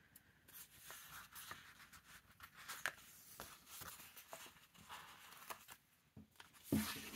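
Faint rustling and crackling of paper stickers being peeled and picked off a sticker sheet, with small scattered ticks. A short hum near the end.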